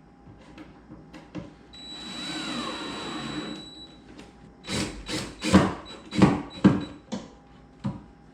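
Cordless drill running for about two seconds, driving screws while cabinet doors are rehung, then about half a dozen sharp knocks and clacks of the doors and hardware being handled.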